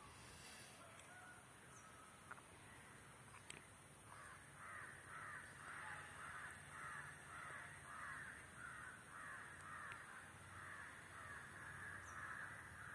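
Faint, evenly repeated bird calls, a little more than one a second, starting about four seconds in over a quiet background hum.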